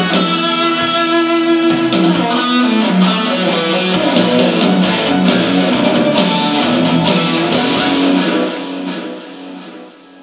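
Electric guitar playing a rock piece, busy notes over a steady pulse. A little after eight seconds the high end drops away and the sound dies out over the last two seconds as the piece ends.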